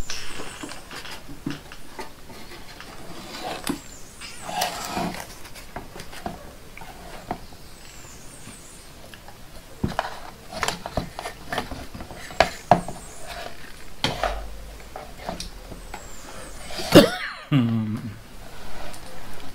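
Scattered clicks and knocks of hands handling an inverter's circuit board and parts on a workbench, with one louder knock near the end.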